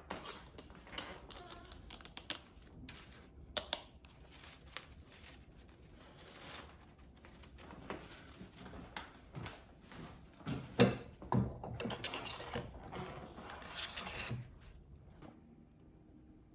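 Handling noise of a filament spool and 3D-printed plastic hub adapters: irregular clicks, knocks and rubbing as the plastic pieces are pushed into and turned in the spool's hub, with a few louder knocks about eleven seconds in.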